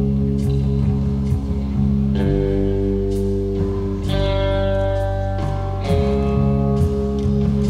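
Music track with guitar, sustained chords changing every couple of seconds over heavy bass and a steady beat.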